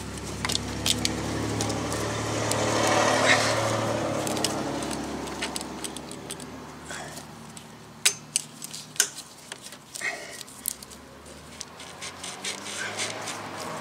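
An engine hum from a passing vehicle swells and fades over the first several seconds. Then come a run of sharp clicks and knocks from the rubber intercooler hose and its clamp being worked back onto the intercooler pipe.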